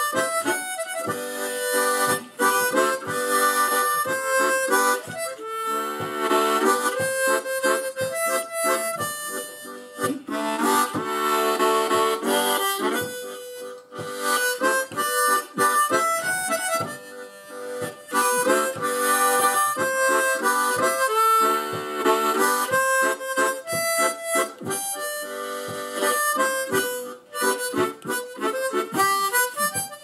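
Harmonica played solo, a quick tune of many short notes and chords, the player's hands cupped around it.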